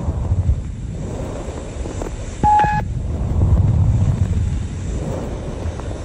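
Stethoscope recording of normal bronchial breath sounds: loud, harsh, low rushing breaths that swell and ease. A short high tone sounds once, about two and a half seconds in.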